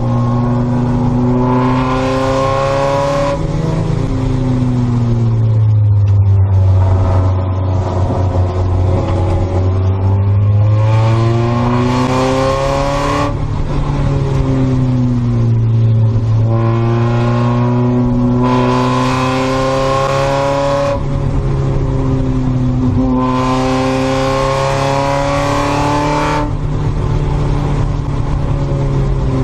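Spec Miata's four-cylinder engine heard from inside the cockpit, held in third gear while racing. The pitch repeatedly rises on the throttle and falls when lifting for corners, dipping lowest a few seconds in.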